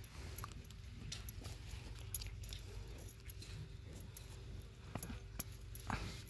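Bangles clinking in small, irregular ticks on the wrist of a hand milking a cow's teat, over a low steady rumble.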